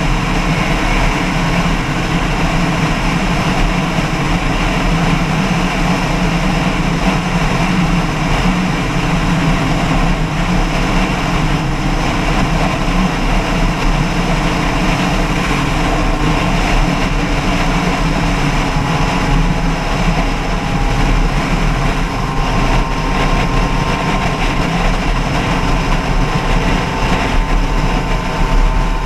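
An engine running steadily under a loud, even rushing noise, with a faint high whine coming in during the second half.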